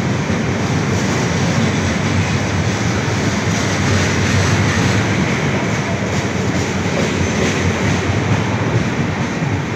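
Red passenger coaches of an Indian Railways train running past a station platform: a steady, loud rumble of wheels on the rails.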